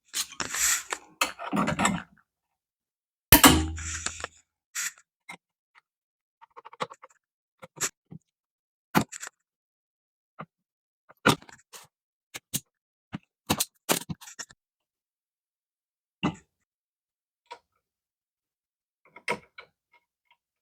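Scattered clicks, taps and knocks of hand tools and parts being handled while wiring a 220 V receptacle, with rustling handling in the first two seconds and a louder knock about three seconds in.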